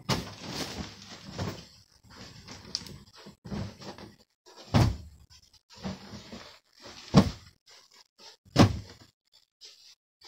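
Irregular knocks and thumps in a small room, the loudest about five, seven and eight and a half seconds in.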